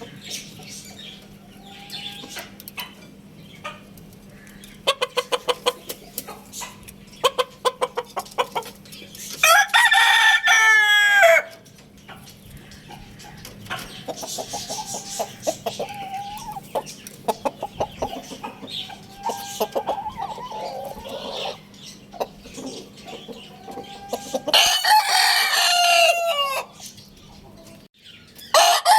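Chickens clucking in quick runs of short calls, broken by a rooster crowing loudly twice, each crow about two seconds long, with a third crow beginning at the very end. A faint steady low hum sits under the clucking until the second crow.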